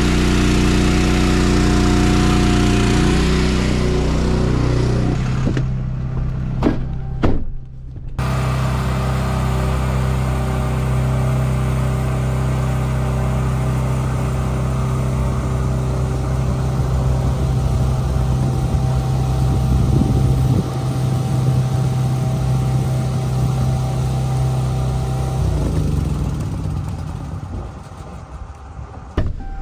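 An engine running at a steady speed. About six seconds in it breaks off briefly with a couple of sharp knocks, then picks up again and eases off a few seconds before the end.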